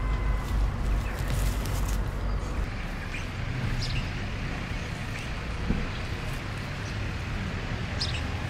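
Outdoor background noise: a steady low rumble, heavier in the first couple of seconds, with a few short, faint high chirps.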